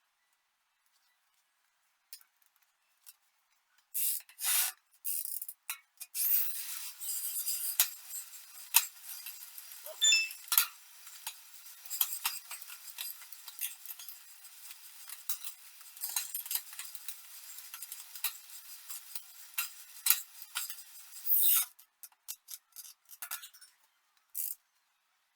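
Small metal tools and parts clinking and scraping at a bike repair. A few scattered clicks come first, then about fifteen seconds of continuous rubbing or scraping dotted with sharp clinks, then scattered clicks again.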